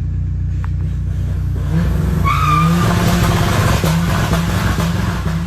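An engine running steadily, with a brief high squeal about two and a half seconds in.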